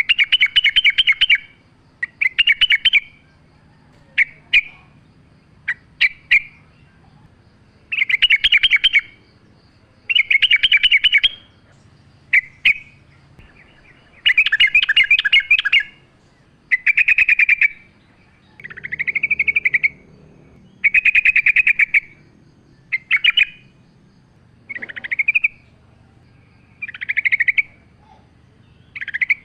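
Yellow-vented bulbul (trucuk) singing: bubbly, chattering phrases about a second long, repeated every couple of seconds, with short sharp notes in between.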